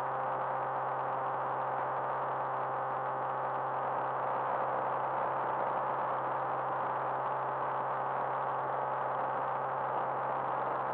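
Cirrus SR20's piston engine and propeller droning steadily in flight, heard inside the cabin: a low hum with several steady tones over a wide rushing noise.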